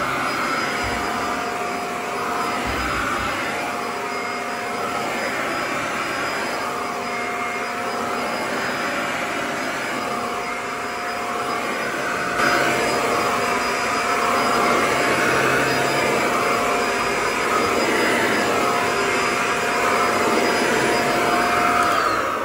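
Corded stick vacuum cleaner running steadily with a steady whine as it is pushed back and forth over carpet. It gets louder about halfway through. Near the end it is switched off and its whine falls away.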